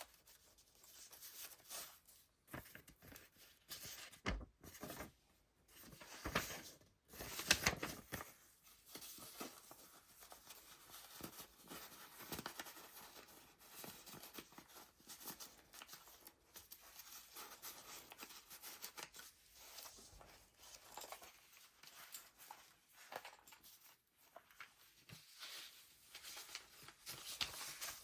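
Pages of a handmade junk journal being turned by hand: irregular paper rustles and swishes, with a few louder flips about four, six and seven seconds in.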